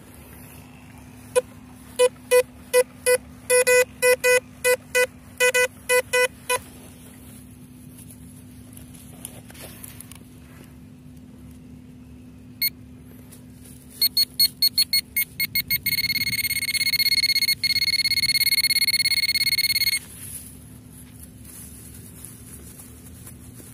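Metal-detecting electronic beeps over a faint steady hum. First a run of lower-pitched beeps that come faster and faster. Then, after a pause, higher-pitched beeps speed up into a steady tone for about four seconds, the pinpointer signalling that it is right on a buried metal target.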